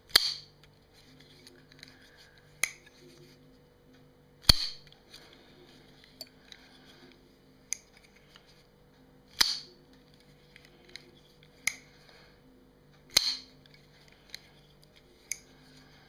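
Zero Tolerance 0301 folding knife being opened and closed by hand: a loud, sharp snap with a short ring four times, about every four to five seconds, as the blade swings out and locks, with lighter clicks between as it is closed.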